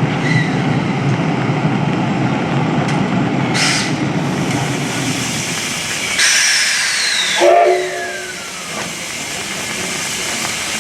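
JNR C57 steam locomotive with a steady low rumble, then a loud hiss of steam about six seconds in, ending in a short whistle toot.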